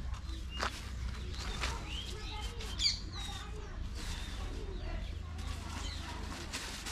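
Small birds chirping in short, quick calls, clustered about two to three seconds in, over a steady low rumble, with a few sharp clicks or knocks near the start.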